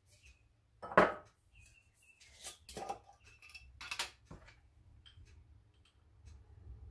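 Clinks and taps of a measuring spoon against small spice jars and a mixing bowl as spices are measured out, with a sharp clink about a second in and a few more over the next few seconds, then only faint ticks.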